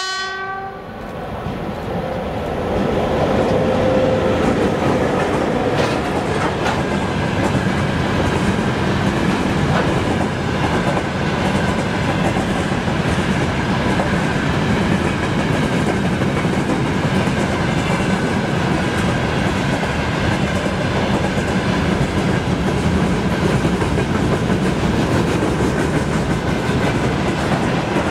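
The tail of a VL80S electric locomotive's horn blast, cutting off about half a second in. It is followed by the steady rumble and clatter of a freight train's hopper and tank wagons rolling past, with wheels clicking over rail joints and a thin steady high whine above the rumble.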